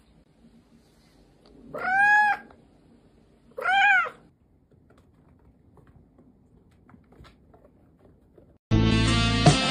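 A cat meowing twice, about two seconds apart, each call rising then falling in pitch. Music starts near the end.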